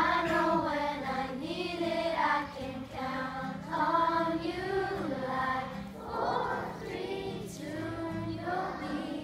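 A group of children singing a song together in chorus, accompanied by an acoustic guitar.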